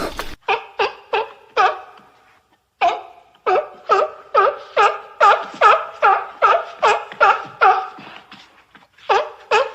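Seal barking: a long series of short, pitched barks, about two to three a second, with brief pauses near the start and near the end.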